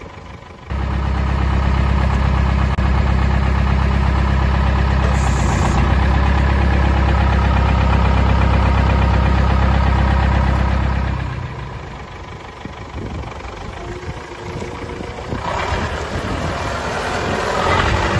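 Case 1394 tractor's four-cylinder diesel engine running steadily close up, with a strong low hum. About eleven seconds in it drops to a quieter, more distant engine sound, which grows louder and noisier near the end as the tractor drives.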